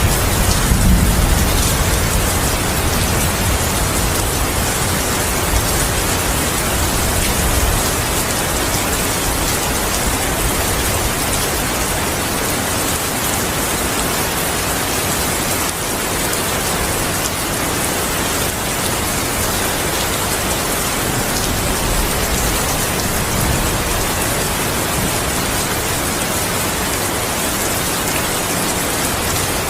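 Steady, heavy rain falling. A low rumble of thunder dies away over the first several seconds.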